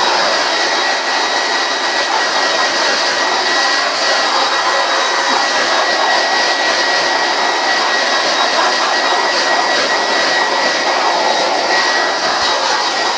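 Handheld hair dryer running on high over a wet dog's coat: a steady rush of blown air with a thin, high whine over it.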